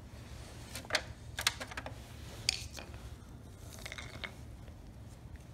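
Light metallic clicks and taps as a small dirt-bike carburetor is picked up and handled over an aluminium foil tray, a few sharp ticks about one, one and a half, two and a half and four seconds in, over a steady low hum.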